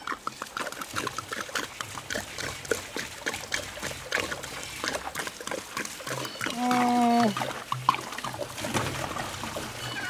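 Water glugging and splashing out of a 5-gallon jug as it is poured into the drum of a top-loading washing machine. There is a short grunt about two-thirds of the way through.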